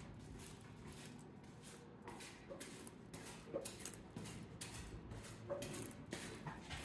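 Footsteps on a gritty concrete floor and steps, soft scuffs about three a second, with loose debris underfoot.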